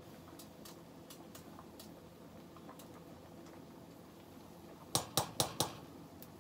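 Four quick, sharp knocks of cookware about five seconds in, louder than anything else. Before them come faint scattered ticks over a low steady hum.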